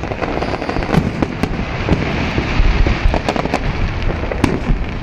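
Fireworks going off: dense crackling with many sharp pops and bangs.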